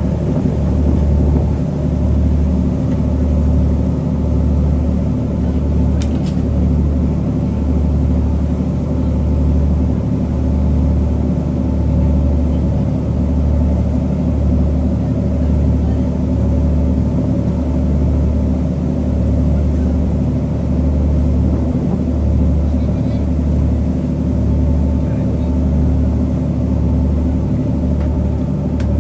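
Steady low engine rumble that swells about once a second, with one faint click about six seconds in.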